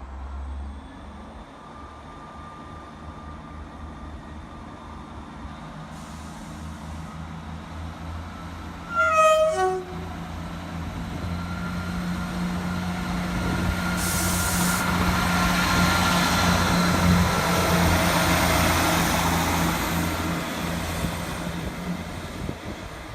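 A train sounds its horn briefly, a short blast falling in pitch about nine seconds in. Its running noise then builds to a peak and dies away near the end as it passes through the station.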